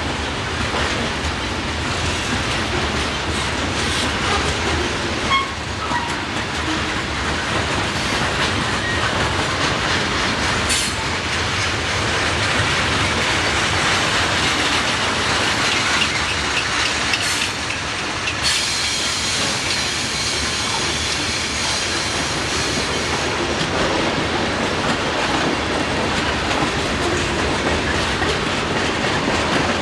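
Freight train cars rolling past at close range, their steel wheels running on the rails in a steady, continuous noise.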